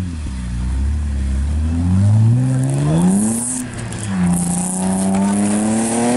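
Rally car's engine revving hard as the car pulls out of a snowbank and accelerates away, its pitch climbing, dropping at a gear change about four seconds in, then climbing again. A hiss of wheelspin in the snow runs through the middle.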